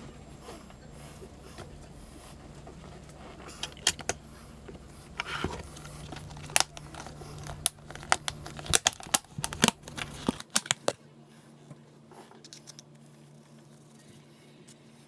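Sharp plastic clicks and knocks from handling a tub of plaster of Paris, coming thick and fast from about four to ten seconds in. After that there are only a few faint scrapes as a plastic cup scoops the dry plaster powder.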